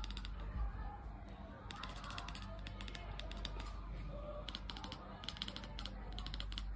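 A tabby kitten chattering: several bursts of rapid clicking.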